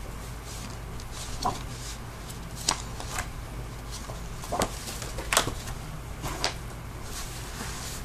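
Sheets of drawing paper being handled and sorted by hand: a series of short, crisp rustles and flaps at uneven intervals, over a steady low hum.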